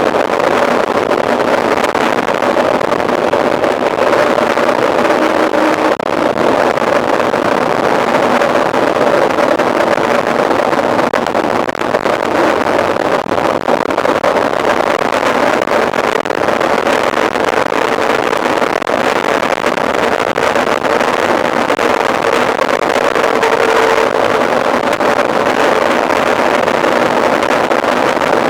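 Steady rush of wind on the microphone and tyre noise from a mountain bike ridden at speed, unbroken throughout.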